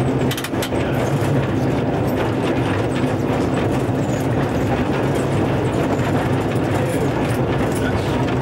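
Vintage electric tram running along its track, heard from on board: a steady low hum and rumble of the moving car, with a few sharp clicks from the wheels on the rails.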